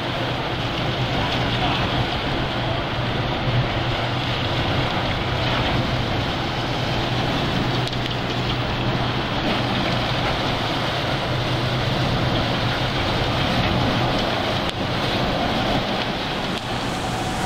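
Steady low drone of a fishing boat's engine under a constant rush of wind and rough sea.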